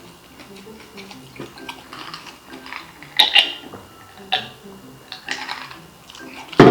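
Background music with a few short, sharp eating noises over it, the loudest near the end.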